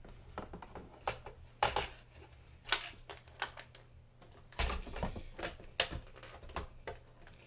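Irregular clicks, taps and knocks of hard plastic hoverboard parts and wiring being handled and pulled apart, with a few louder knocks among them.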